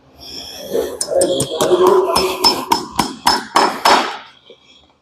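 Farrier's driving hammer striking horseshoe nails, driving them through the steel shoe into the hoof wall. A rapid run of about fifteen sharp, ringing strikes starts about a second in and stops about four seconds in.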